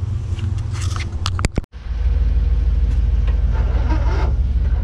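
Pickup truck engine idling steadily with a low rumble, hooked up by jumper cables to charge a battery. About a second and a half in there are a few sharp clicks, and the sound cuts out for a moment before the rumble comes back stronger.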